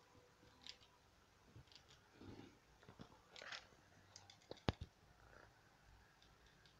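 Faint handling sounds of a stained sea-glass figurine being moved on a wooden shelf: scattered light clicks and small knocks, with one sharp tap about two-thirds of the way in.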